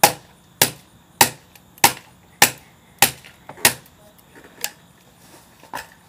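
A hand tool striking a flip phone over and over with sharp, evenly spaced hits about every 0.6 seconds, seven loud ones in a row. In the last two seconds the knocks turn fainter and sparser.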